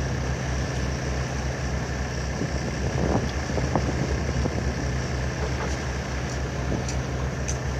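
A steady low engine drone runs unchanged throughout, with a faint steady whine above it.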